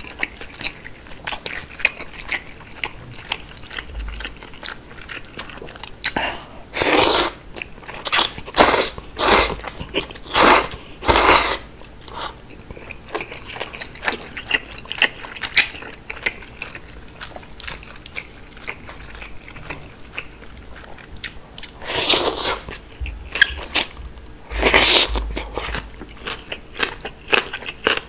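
Close-miked eating of cold udon: wet chewing clicks throughout, broken by a run of five or six loud noodle slurps about a quarter of the way in and two more in the last third.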